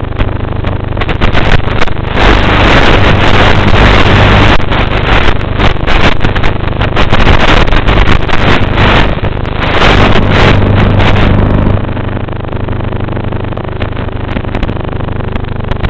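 Twin-motor radio-controlled model Cessna in flight, its motors and propellers running with a steady hum under a rush of air noise. The sound drops to a lower, quieter level about twelve seconds in.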